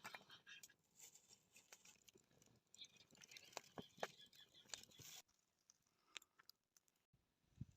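Near silence with faint, scattered clicks and ticks. The clicks thin out and stop a little after halfway through.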